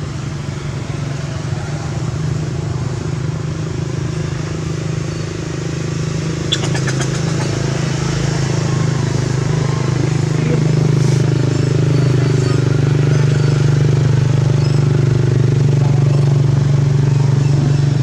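Steady hum of a running motor engine, growing louder about halfway through, with a short clatter of clicks about six and a half seconds in.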